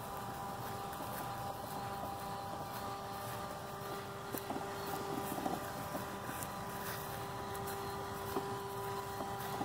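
L300 Elite robotic lawn mower running across the grass, its electric motors giving a steady whine, with a few faint clicks midway.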